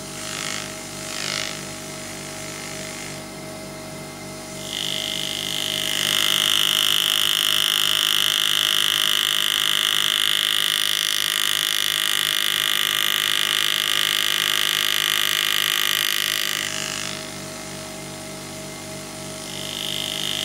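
Pneumatic engraving handpiece (air-driven graver) running as its point cuts into a nickel coin. It is a steady high-pitched whine that starts about five seconds in, stops around sixteen seconds and starts again near the end.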